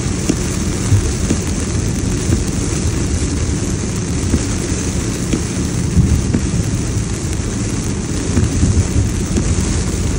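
Heavy rain pelting a moving car's windshield and roof at highway speed, heard from inside the cabin as a steady hiss with many small ticks. Under it runs a loud low rumble of tyres on the flooded road and wind.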